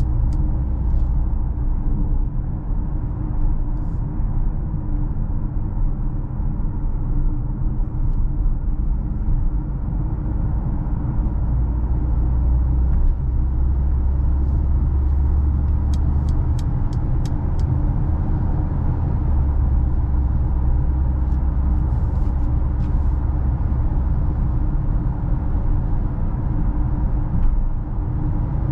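A 2021 Mercedes GLA with the 1.3-litre turbo four-cylinder (163 hp) driving, giving a steady low engine and road rumble. About sixteen seconds in comes a brief run of quick, faint high clicks.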